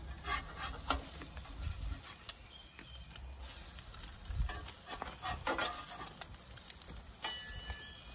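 Eggs frying on a Blackstone 17-inch griddle, with a metal spatula scraping and tapping on the griddle top now and then. Wind rumbles on the microphone during the first couple of seconds.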